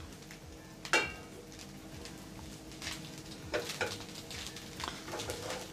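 Wooden spatula stirring and tossing cooked rice in a non-stick pan, with one sharp knock against the pan about a second in and softer scrapes after.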